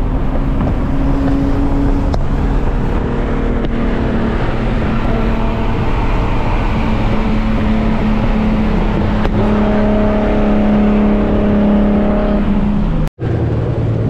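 Car engine drone with road and tyre noise, heard from inside a car at highway speed; the engine note holds steady and steps up a little about halfway through. The sound cuts out for an instant near the end.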